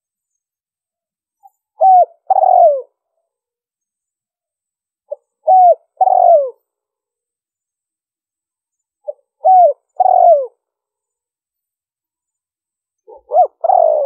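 Spotted dove cooing: four calls about four seconds apart, each a faint short note, a brief coo, then a longer coo that falls in pitch.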